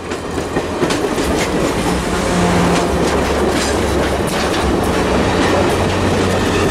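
Stainless-steel passenger cars of a train rolling past close by: a steady rumble with wheels clicking over the rail joints.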